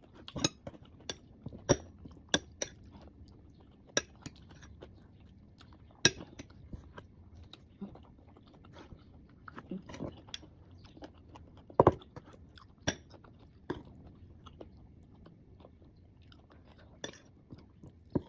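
Crunchy bites and chewing of mango slices with shrimp paste, sharp crunches coming at irregular intervals a second or two apart, the loudest about twelve seconds in.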